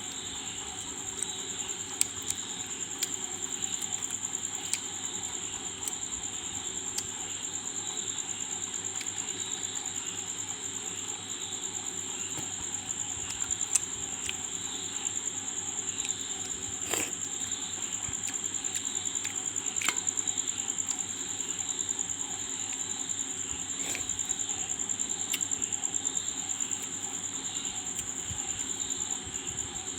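Close-up eating sounds of a person eating mutton by hand: chewing and mouth smacks with frequent small clicks. A steady high-pitched tone is held throughout.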